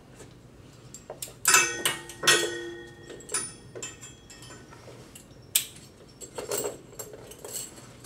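Metal hardware of exercise tubing clinking and jangling against a metal wall anchor rack as the tubing is unhooked and hooked onto a low anchor point. It comes as scattered clinks; the two loudest, about a second and a half and two seconds in, ring briefly.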